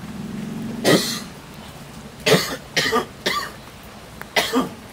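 A man coughing: a low hum runs into a first cough about a second in, then three coughs in quick succession and one more near the end.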